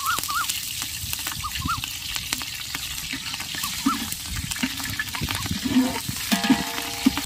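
Green chillies and whole spices sizzling and crackling in hot oil in a large aluminium pot while a slotted ladle stirs them. Repeated chirping calls sound over the first few seconds, and near the end there are a couple of louder clinks with a brief ring.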